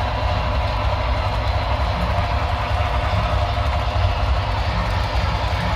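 HO scale model trains running on the layout: a steady low hum under a higher whirring of motors and wheels on the track, with no breaks or sudden events.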